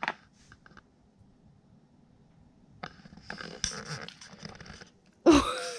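Siberian husky sniffing hard in quick bursts, its nose close to the microphone. Near the end comes a brief, louder sound with a voice-like pitch.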